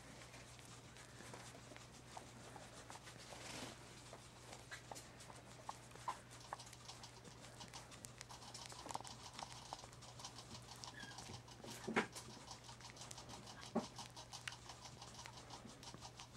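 Quiet room with a steady low hum and scattered soft clicks and small rustles. The loudest click comes about twelve seconds in.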